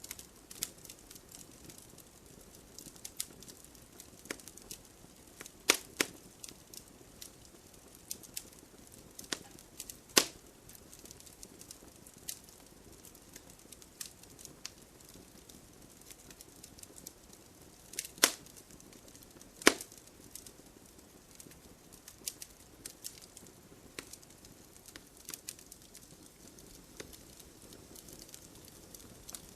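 Wood fire burning in a fireplace: logs crackling with irregular sharp pops over a soft steady hiss of the flames. Four louder pops stand out, about six, ten, eighteen and twenty seconds in.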